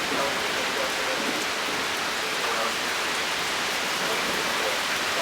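Heavy thunderstorm rain pouring down steadily, an even hiss that neither builds nor fades.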